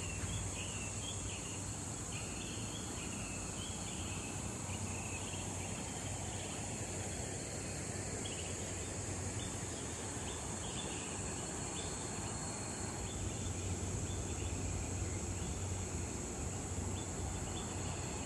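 Outdoor forest ambience: a steady high insect drone, like crickets or cicadas, with short bird chirps repeating throughout.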